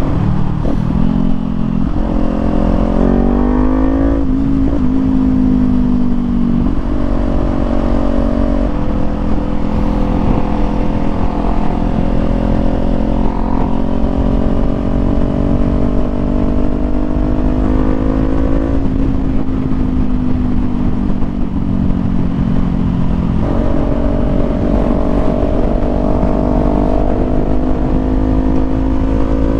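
Kawasaki Z400 parallel-twin motorcycle engine under way, heard from the rider's seat with wind rumble on the microphone. It revs up and shifts about four seconds in, then holds a steady note whose pitch climbs slowly. The revs drop a little past the middle and step up again near the end.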